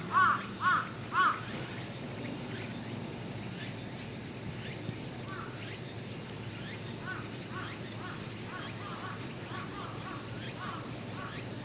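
Crow cawing, three loud caws about half a second apart in the first second and a half, then fainter caws in quick succession from about five seconds in.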